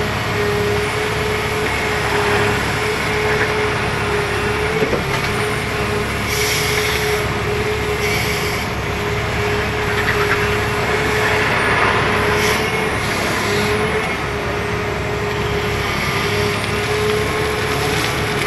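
Caterpillar 336E hydraulic excavator digging: its diesel engine runs steadily under load with a steady whine held over it, and short rushes of noise every few seconds. Near the end, rock and gravel pour rattling out of the bucket.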